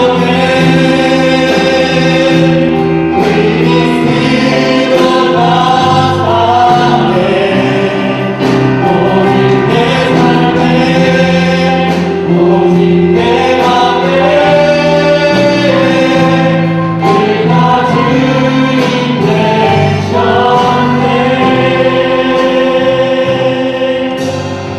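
Choir singing a hymn with accompaniment, in long held notes, fading out near the end.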